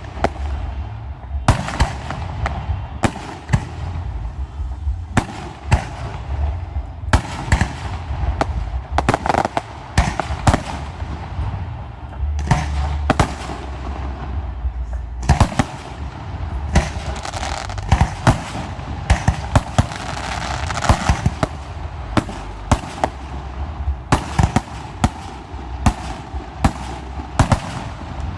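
Fireworks show: aerial shells bursting in quick succession, a sharp bang every second or so and sometimes several close together, over a continuous crackling rumble.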